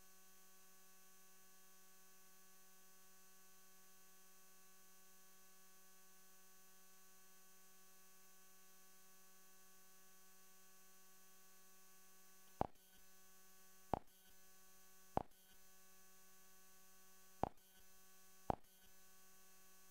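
Faint steady electrical hum with a buzzy tone, broken in the second half by five short, sharp clicks spaced one to two seconds apart.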